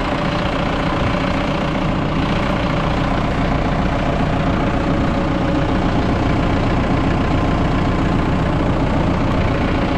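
Tractor engine idling steadily, heard close to its exhaust muffler.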